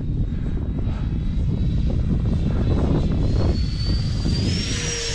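The 90 mm electric ducted fan of a model jet whines in flight. About three seconds in, the whine rises in pitch and grows louder as the jet powers into a vertical climb.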